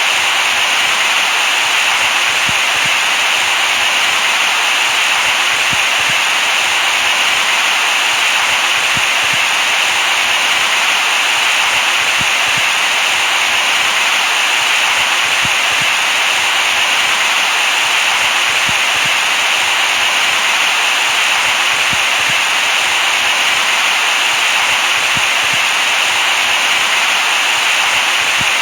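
Steady white noise: an even, unbroken hiss, bright and thin in the bass, with no change in level.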